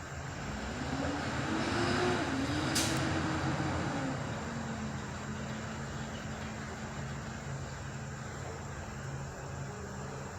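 A motor vehicle's engine rising in pitch and louder, then falling away over a few seconds, over a steady low pulsing hum; a brief hiss about three seconds in.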